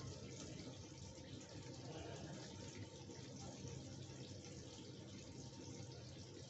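Chicken curry simmering in an iron kadai on a gas stove, a steady bubbling sizzle.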